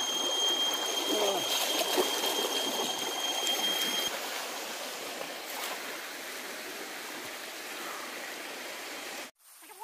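Shallow river water running over stones, with splashing as a man wades and a cast net lands on the surface and is dragged back. A steady high whine runs through the first few seconds, and the sound cuts off abruptly just before the end.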